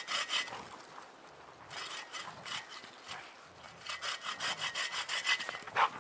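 Sven folding bow saw cutting through a stick of wood in quick back-and-forth strokes, in three runs with short pauses between. A short, sharper sound near the end.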